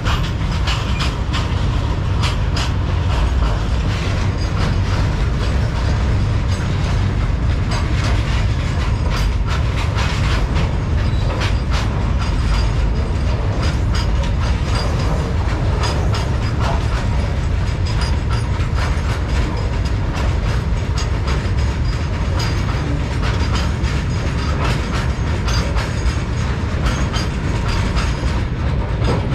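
Freight train wagons running past: a steady heavy noise of steel wheels on rail, with repeated clicks as the wheels cross rail joints.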